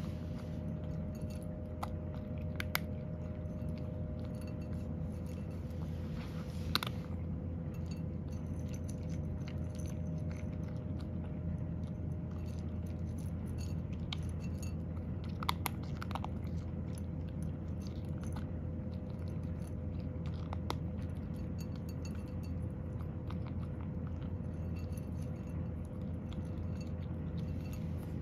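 A cat crunching and chewing dry kibble from a ceramic bowl, with a few sharp clicks, over a steady low hum.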